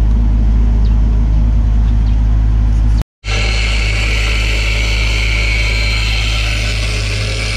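An engine idles steadily with a low drone. After a cut about three seconds in, an angle grinder runs against the steel frame, adding a steady high grinding whine over the engine.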